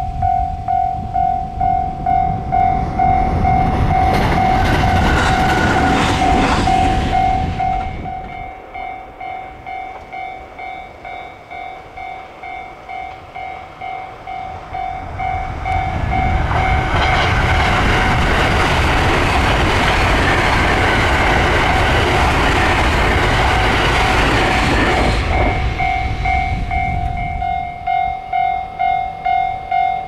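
Level-crossing warning bell dinging steadily at about one and a half strokes a second. Over it, two electric trains pass at speed with a loud rushing roar of wheels on rail. First a JR West 521 series local train goes by, fading out about 8 seconds in. After a lull, a longer Thunderbird limited express passes from about 15 seconds in to about 27.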